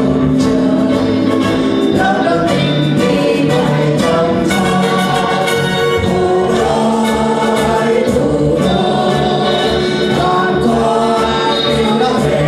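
A mixed choir of men and women singing a Vietnamese song together, many voices at once, steadily and without a break.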